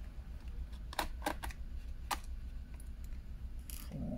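A handful of small, sharp clicks and taps from a screwdriver and tiny screws against the plastic bottom case of an HP Envy 17 laptop as its screws are taken out, most of them between one and two seconds in. A steady low hum runs underneath.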